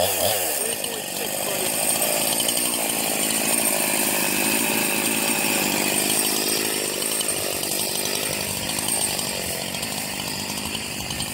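Gas chainsaw engine running. Its pitch drops away in the first second, and then it runs steadily.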